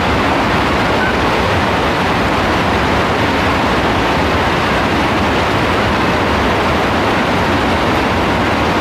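Heavy rain falling steadily, a loud unbroken hiss.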